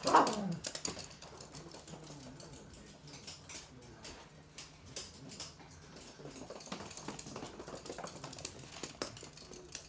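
Toy poodles' claws clicking and pattering on a hard glossy floor as the dogs trot about, with one short squeal falling in pitch right at the start.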